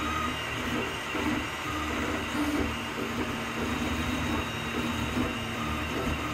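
Qidi Tech 3D printer at work: its stepper motors whine in short tones that keep changing pitch as the print head and bed move, over a steady fan hum.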